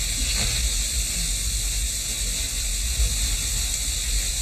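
Steady hiss with a low hum underneath, the background noise of an old film soundtrack during a held silence, with one faint tick about three seconds in.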